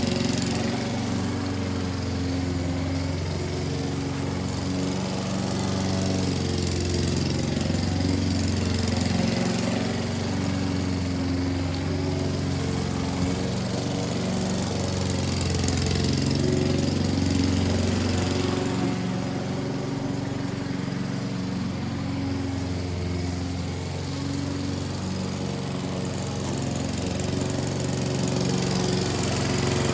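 Gas walk-behind lawn mower running steadily while cutting grass. Its engine hum swells and fades gently as the mower is pushed nearer and farther away.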